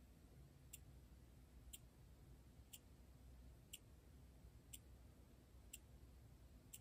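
Yolako quartz watch with a Z205 movement ticking, seven sharp clicks evenly spaced one each second as the second hand steps, against near silence. The tick is really loud for a quartz watch, almost like a Timex.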